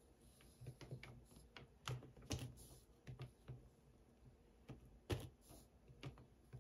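Faint, scattered clicks and light taps of an electric wax-painting stylus working wax on a card.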